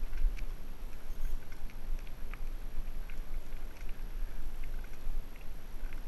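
Mountain bike descending a rough trail: a steady low wind rumble on the camera microphone, with scattered clicks and rattles from the bike and tyres over stones.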